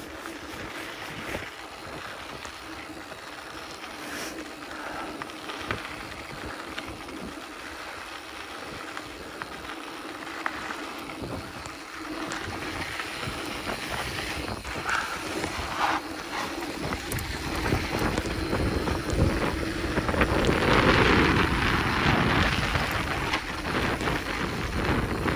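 Mountain bike riding down a dirt trail: wind buffeting the microphone over tyre rumble, with scattered small clicks and rattles. It grows louder from about two-thirds of the way in as the speed picks up.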